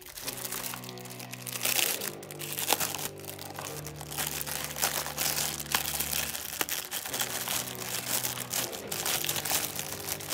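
Clear plastic packaging crinkling and rustling as it is handled, over background music with slow, sustained chords.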